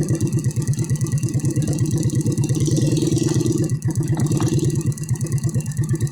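Vehicle engine running steadily at low revs, its firing pulses coming at about ten a second.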